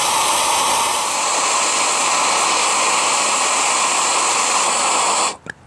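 Handheld gas torch running full on, a loud steady hiss as its flame heats a muzzle brake red hot; the sound cuts off suddenly near the end.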